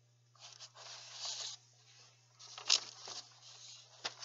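Sheets of paper rustling and being shuffled in two spells, with a sharp click near the middle and another near the end.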